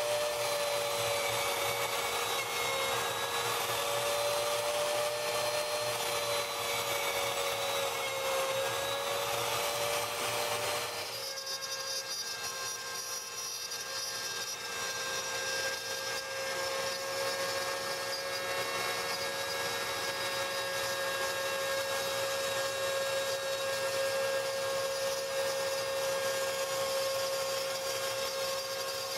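Router spindle on a homemade CNC router running with a steady whine as it drills holes into the MDF vacuum-table top. About eleven seconds in the sound changes to the same spindle milling a thin aluminium sheet, a steadier whine with less rasping noise.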